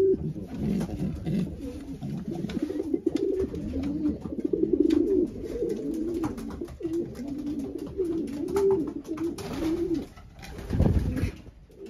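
Racing pigeons cooing, several overlapping rolling coos that rise and fall in pitch, with light scuffling clicks. A short louder thump about eleven seconds in.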